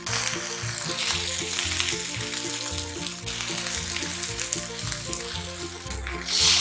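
Food sizzling in a hot frying pan, swelling to a louder, hissing sizzle about six seconds in as seasoning liquid is poured over yellowtail fillets for teriyaki.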